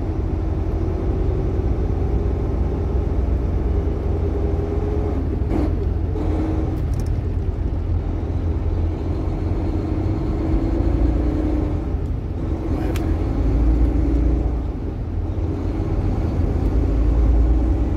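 Semi truck's diesel engine and road rumble heard from inside the cab while driving, a steady low rumble with the engine note rising and falling. A couple of short clicks, about five and a half and thirteen seconds in.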